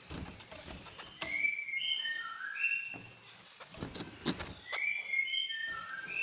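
Greater green leafbird (cucak ijo) singing in shrill song: quick phrases of short, clear whistled notes stepping up and down in pitch, broken by a few sharp clicks, the loudest about four seconds in.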